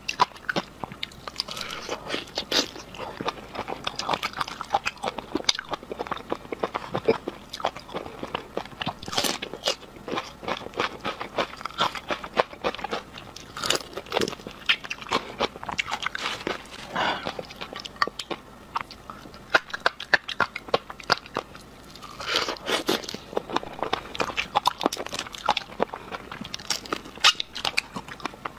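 Close-miked eating sounds: crunching bites and wet chewing as a large prawn is bitten into and eaten, with many sharp crackles throughout.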